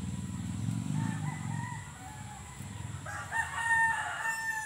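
A rooster crowing: shorter calls start about a second in, then one long, slightly falling crow in the second half. A low rumble fades out in the first two seconds.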